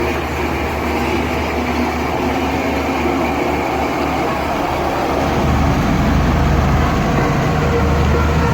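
A heavy construction machine's engine running steadily with a deep hum, growing louder about five and a half seconds in.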